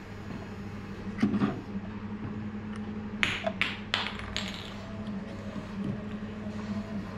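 Hard plastic parts of a prototype valve assembly being handled: a knock about a second in, then a quick run of sharp clicks and clacks a little past the middle, over a steady low hum.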